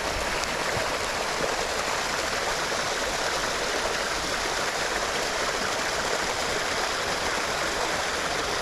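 Steady rushing of a small creek's water pouring over a little waterfall.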